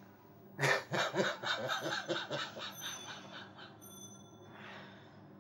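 A person's voice in a broken, shuddering run of short breathy pulses, about eight a second, starting loud and fading over about three seconds. A long breath follows near the end.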